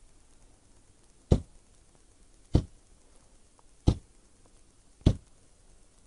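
QCW dual-resonant solid-state Tesla coil (DRSSTC) firing four short 20 ms spark pulses, each a single sharp snap, about one every 1.2 seconds.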